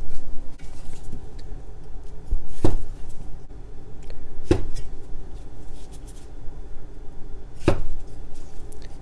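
Cleaver cutting small skin-on potatoes on a wooden cutting board: three sharp knocks of the blade striking the board, a couple of seconds apart, with fainter knife clicks between.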